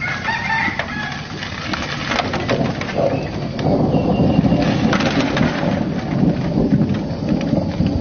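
A few short pitched bird calls in the first couple of seconds, followed by a steady low rumbling noise with scattered sharp clicks that grows louder about halfway through.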